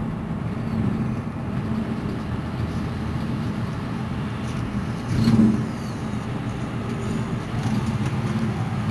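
Mercedes-Benz Citaro C2 city bus running, heard from inside: a steady low engine and drive rumble, with a brief louder surge about five seconds in.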